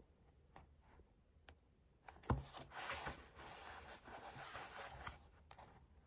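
A soft knock about two seconds in, followed by about three seconds of rustling handling noise, with a few light clicks before and after.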